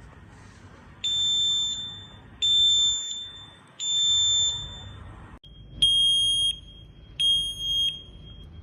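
Smoke detector alarm beeping: three loud, evenly spaced beeps of about three-quarters of a second each, in the temporal-three pattern. After a break, two more beeps follow at a slightly lower pitch.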